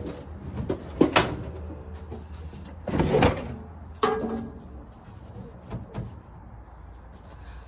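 Loud knocks and clunks of metal equipment being handled, heaviest about a second in and again around three and four seconds in, from wrestling a lawn tractor around by hand.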